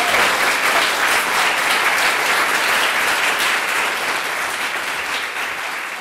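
Audience applauding, a dense steady clapping that slowly dies down over the last couple of seconds.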